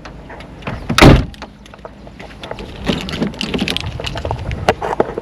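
A loud thump about a second in, then a run of light knocks and clicks.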